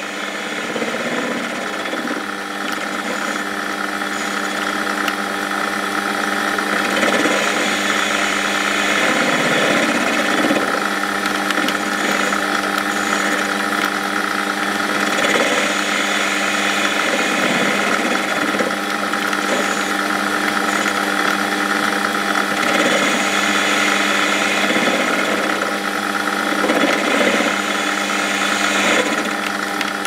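Metal lathe running with a steady hum while its cutting tool faces the end of a home-cast aluminium bar. The cutting noise swells and fades several times, and the bar is machining cleanly.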